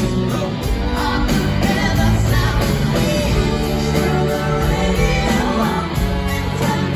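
Live rock band playing a song in concert, with electric guitars and drums under a singing voice, heard loud from the audience.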